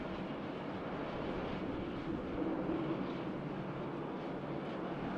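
Jet airliner engines running steadily, an even noise with a faint hum that swells slightly about halfway through.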